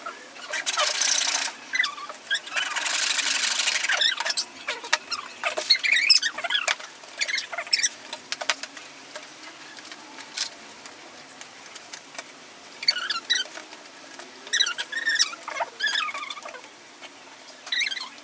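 Two short hisses near the start, then a run of short high squeaks and small scrapes as wooden strips are worked into an MDF box.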